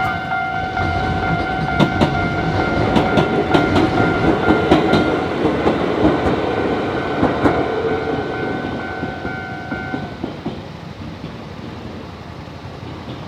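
Level-crossing alarm sounding steadily as an electric train passes over the crossing, its wheels clacking over the rail joints. The alarm cuts off about ten seconds in and the train noise fades away.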